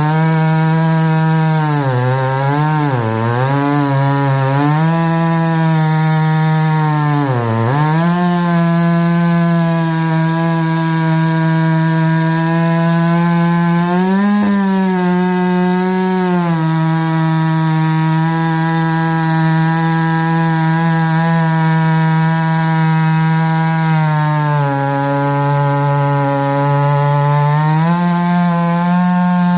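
Stihl MS661C two-stroke chainsaw on a Granberg Alaskan mill running at full throttle while ripping a pine log. Its engine note dips several times in the first eight seconds, holds steady through the middle, and sags lower for a few seconds near the end before picking back up.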